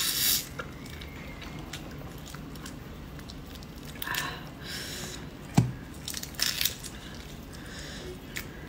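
Close-up eating sounds of red shrimp: a wet slurp right at the start, then the shells being twisted and peeled off by hand in short crackly, squishy bursts, with one sharp click a little past halfway.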